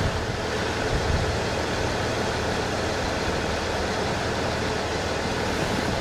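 Steady road and engine noise of a moving vehicle: an even rumble with hiss over it.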